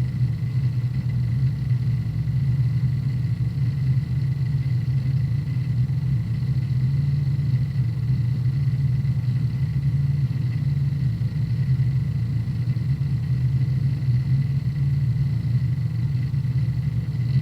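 Hard disk drive defragmenting: the read/write heads seeking in a fast, continuous chatter over the steady low hum of the spinning platters.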